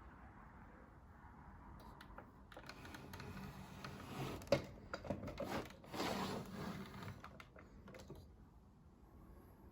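Clicking and rattling of a Keurig K-Elite single-serve coffee maker's hard plastic parts being handled, with one sharp click about halfway through.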